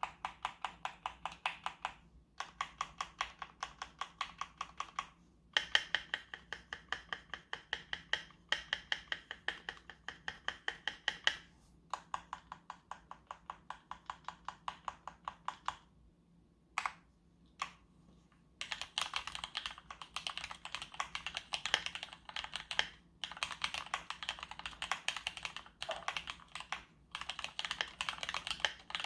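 Keychron K2 aluminium wireless keyboard with red linear switches being typed on: runs of evenly paced keystrokes, several a second, broken by short pauses, then faster, denser typing over the last ten seconds or so.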